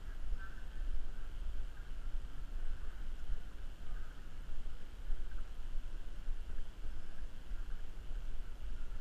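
Wind rumbling on a GoPro's microphone: a low, uneven rumble with a faint steady hiss above it.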